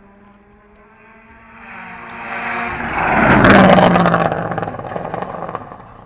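Rally car coming up fast and passing at full speed, its engine note swelling to a peak about three and a half seconds in and then falling away, with a run of sharp cracks as it goes by.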